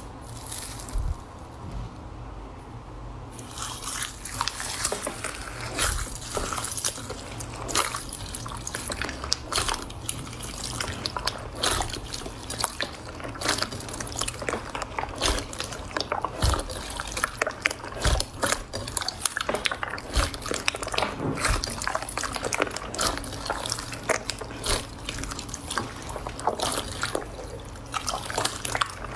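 Hands squeezing and kneading wet clear slime full of air bubbles: a dense run of wet squelching, clicking and popping. It is sparse at first, then turns busy a few seconds in.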